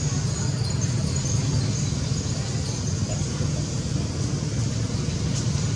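Steady low background rumble with an even hiss above it, unchanging throughout.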